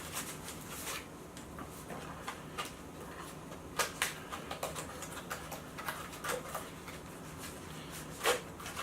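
Handling noise from a small plastic flexible phone tripod: scattered light clicks and taps, with a few sharper clicks about four seconds in and near the end.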